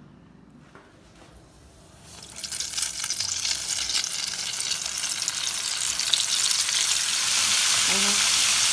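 Floured calamari rings frying in hot oil: a loud, crackling sizzle that starts about two seconds in, after a quiet opening.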